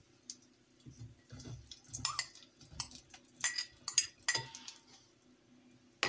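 Beans tipped from a bowl into an enamel pot: a scatter of sharp clicks and clinks, with soft thumps first and the clicks between about two and four and a half seconds in.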